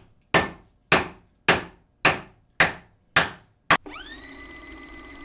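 A Ka-Bar Gila folding knife being batoned into wood: seven sharp strikes on the blade's spine, about two a second, each dying away quickly, as the blade works slowly into the wood. The strikes stop just before 4 seconds in, and a steady, even tone carries on after them.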